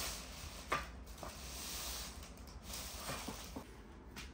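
A few light knocks and clicks, the sharpest less than a second in, over a faint steady hiss.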